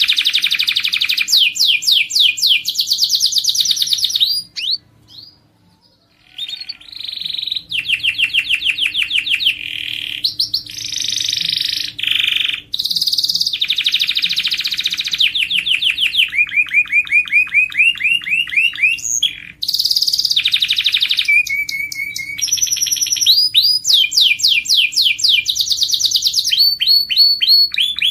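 Domestic canary singing a long song of fast trills and repeated rolling phrases, each phrase a quick series of identical notes, with a brief pause about five seconds in.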